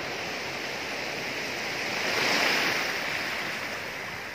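Sea waves washing onto the shore: a steady hiss that swells to a peak about halfway through and then eases off.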